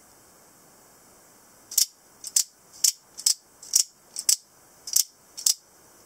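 Spring-loaded double-edged out-the-front automatic knife being fired and retracted over and over with its thumb slider. Each stroke is a sharp metallic snap, about eight in quick succession, starting near two seconds in and some coming as close pairs.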